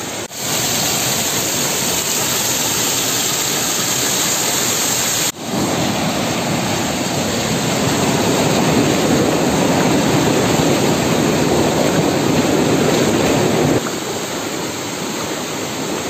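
Penna river whitewater rushing over rocky falls, a steady loud rush of water. It breaks off abruptly about five seconds in and comes back fuller and deeper, then thins out near the end.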